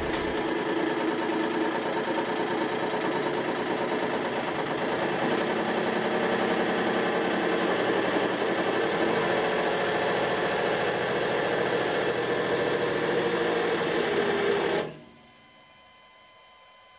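Hydraulic press pump running steadily under high load as the ram flattens a bent armour plate, then shutting off suddenly about fifteen seconds in, leaving only a faint hum.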